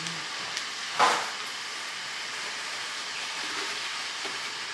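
A shopping bag being handled: one sharp crinkle about a second in, over a steady hiss.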